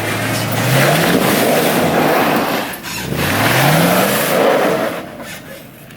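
An off-road 4x4's engine revving hard under heavy throttle on a climb, rising in pitch twice, then dropping away near the end.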